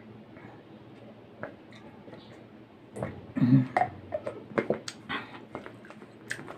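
Person drinking water from a plastic bottle. Quiet swallowing, then about three seconds in a short, loud sound from the throat. A run of small clicks and knocks follows as the plastic bottle and cap are handled and the cap is put back on.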